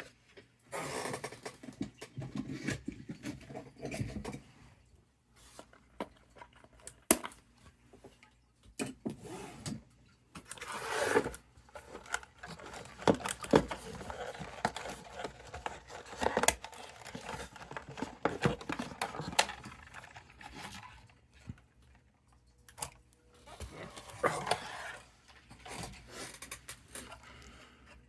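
Cardboard and plastic packaging being handled and pulled apart: irregular rustling and scraping, broken by several sharp clicks and snaps.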